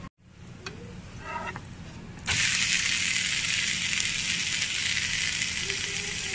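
Dosa frying on a hot tawa griddle: quiet pan sounds at first, then about two seconds in a loud, steady sizzle from the turned-over dosa that runs on unchanged.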